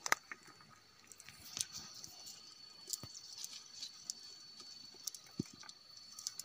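Faint scattered rustles and small clicks of hands working a mesh fishing net and picking small fish off wet, muddy ground into a plastic bucket.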